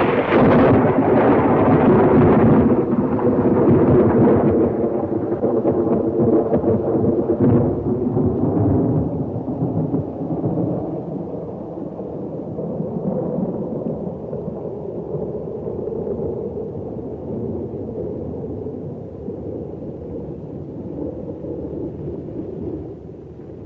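A long rumbling sound effect that starts suddenly at full strength and slowly dies away over about twenty seconds.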